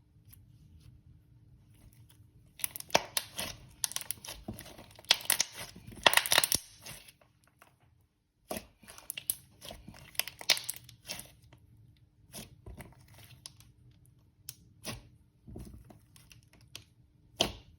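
Thick slime being squished, stretched and poked by hand, giving irregular sticky crackles and pops. It starts a couple of seconds in and pauses briefly about halfway through.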